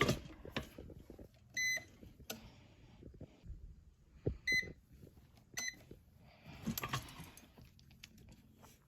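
Heat press's control panel giving three short high electronic beeps a few seconds apart, the first a little longer, with soft clicks and knocks of handling between them.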